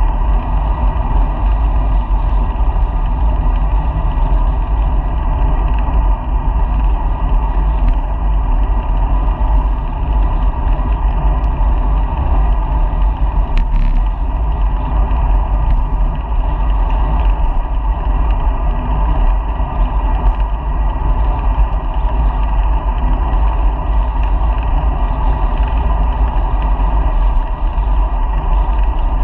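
Steady, loud wind rumble and rolling noise from a moving bicycle, picked up by a GoPro camera mounted on the bike.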